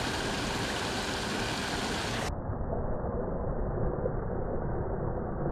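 Steady rushing of water pouring from a drain outlet into a concrete canal. The sound turns muffled a little over two seconds in.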